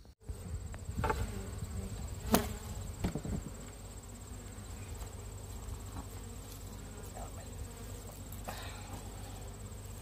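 Honeybees buzzing steadily around an opened hive, with a few sharp clicks and scrapes of a hive tool working the wooden frames during the first few seconds.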